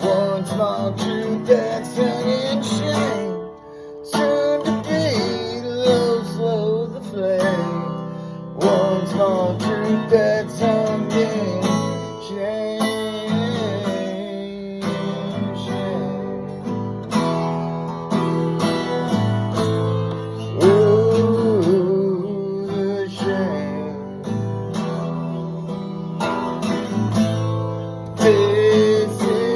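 Music: strummed acoustic guitar chords with a melody line that bends and wavers above them.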